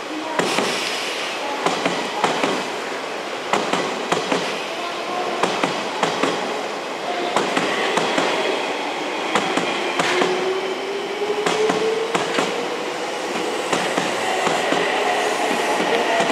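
Odakyu electric train running through the station throat over rail joints and points, its wheels clicking irregularly. A whine rises in pitch from about ten seconds in.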